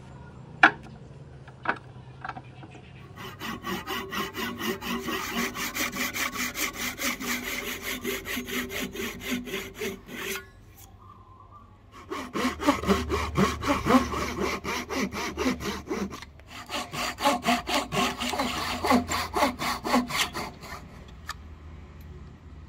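Two sharp knocks, then a hand saw cutting wood in quick, regular back-and-forth strokes. The sawing comes in three runs, with a short pause about halfway through and another soon after.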